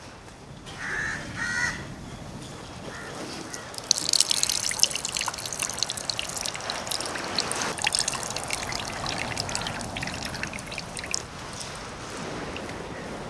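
Fresh coconut milk squeezed by hand from grated coconut, trickling and splattering into a small clay bowl. It starts about four seconds in and thins out toward the end. A crow caws twice near the start.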